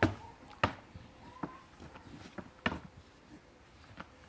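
A handful of sharp, separate knocks and taps, the loudest at the very start, about half a second in and near the middle.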